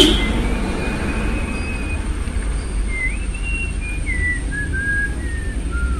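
A person whistling a slow tune in long held notes that step up and down, over a steady low background rumble, with a single knock right at the start.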